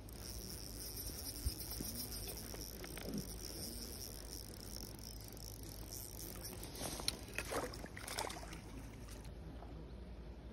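A small spinning reel whirring steadily as it is wound in on a hooked trout, then several short splashes and knocks about seven seconds in as the fish is landed in the net.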